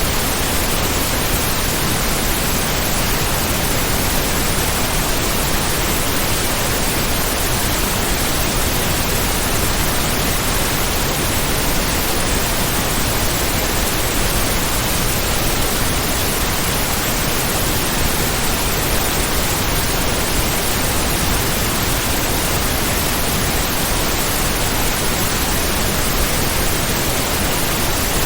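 Heavy rain as a dense, steady hiss, even and unchanging throughout, with no single drops or gusts standing out.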